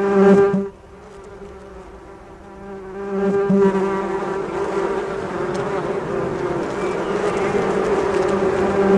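A steady, low buzzing drone. It is loud at first, drops to faint for about two seconds, then swells back about three seconds in and holds.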